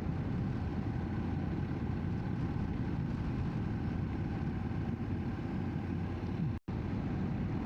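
Motorcycle running steadily at road speed, engine drone under wind noise on the microphone. The sound drops out for an instant about six and a half seconds in.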